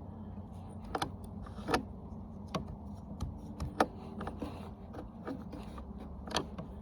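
Scattered light clicks and knocks from hands working a small chainsaw's bar and chain during assembly, over a low steady hum.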